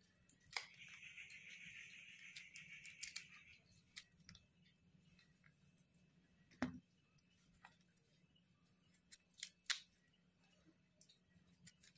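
Faint scraping and clicking of a small metal utensil against wood apple (kadbel) shell and pulp as the pulp is dug out: a few seconds of scraping near the start, then scattered sharp clicks, the loudest about six and a half and nine and a half seconds in.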